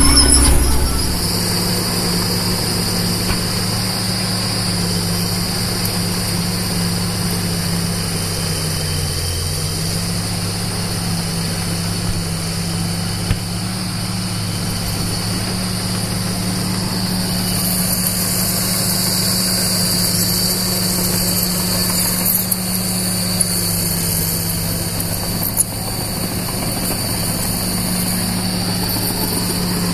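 Excavator engine running steadily at a constant speed, with a steady high whine above it. The engine pitch dips briefly about nine seconds in, and there are a few faint clicks.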